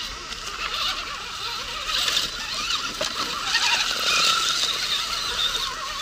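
Radio-controlled rock crawler's electric motor and geartrain whining as it crawls over rocks, the pitch wavering up and down with the throttle.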